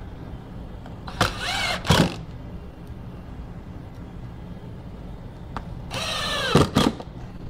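Cordless drill run twice into wooden boards, each burst about a second long, with the motor's pitch dropping as each one ends.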